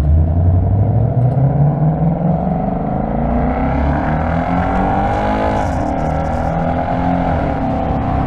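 2025 Ford Mustang GT's 5.0-litre V8 accelerating, its note rising steadily. About five and a half seconds in, the automatic shifts up and the engine runs on at a steadier pitch.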